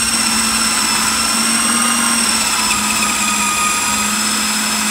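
Electric blender running steadily, mixing a thick batch of twaróg cheese and dissolved jelly, with a high whine over a low hum.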